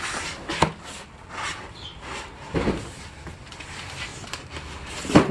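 Things being rummaged through and handled in boxes: rustling with scattered clicks and knocks, and a sharp knock about five seconds in.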